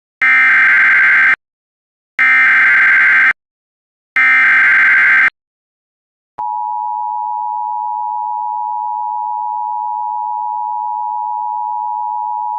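Emergency Alert System tones for a tornado warning: three one-second bursts of SAME header data, a harsh digital screech, about a second apart, then the two-tone attention signal, a steady held tone, starting a little after six seconds in.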